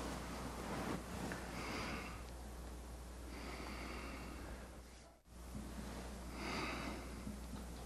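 A person's heavy breathing through the nose, three slow audible breaths, over a low steady hum of room tone.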